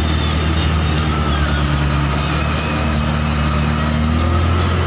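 Truck engine heard from inside the cab, pulling steadily up a steep, rocky dirt track under load; its note shifts about four seconds in.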